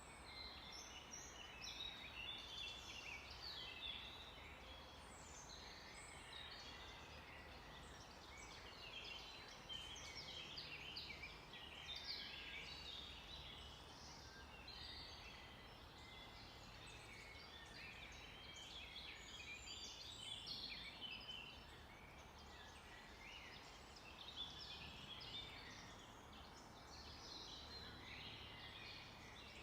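Faint chorus of many songbirds in forest, short high chirps and trills overlapping one another throughout.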